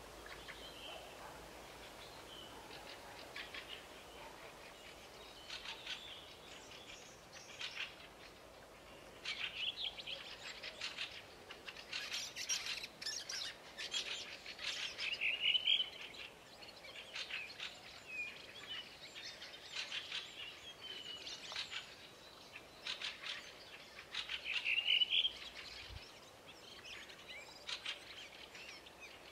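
Wild birds singing: repeated short, high chirping phrases and trills, the loudest two ending in a quick rising trill.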